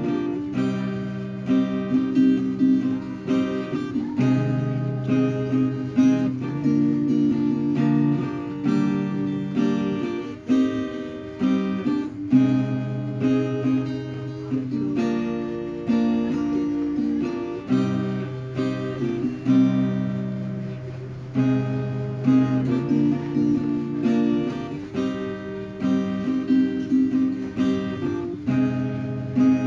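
Background music of a strummed acoustic guitar with chords changing every second or two.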